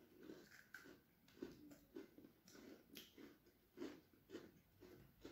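Faint, irregular chewing and soft crunching of Oreo Brownie sandwich cookies as they are eaten.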